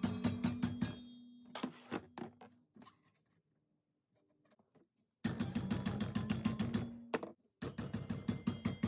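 Rapid hammer blows on a sheet-steel floor-pan patch panel clamped in a vise, about four or five strikes a second, with the metal ringing; the panel is being bent over the vise jaws. The blows stop a few seconds in and start again abruptly about halfway through.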